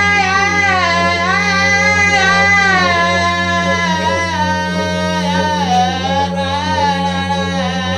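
Music: a steady low didgeridoo drone with a voice singing slow, wavering lines over it.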